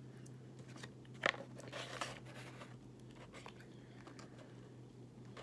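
Faint chewing of Skittles candy, with one sharp click a little over a second in, then a second or so of soft crunching.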